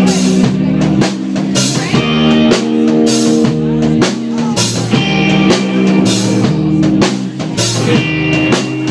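Live rock band playing loudly: a drum kit keeps a steady beat with cymbal hits under sustained guitar chords.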